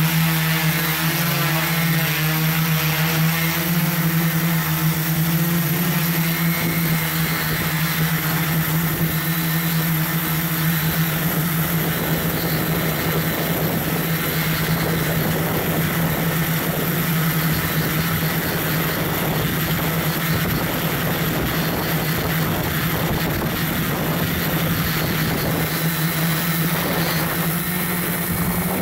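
Multirotor drone's motors and propellers humming steadily at close range, picked up by the camera riding on the drone. About twelve seconds in, the sound turns rougher and noisier.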